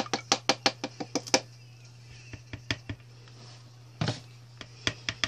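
Lye solution dripping through a small metal mesh strainer into a bowl of soap-making oils: a quick run of drips and ticks for the first second and a half, then a knock about four seconds in and a few light taps as the strainer is handled.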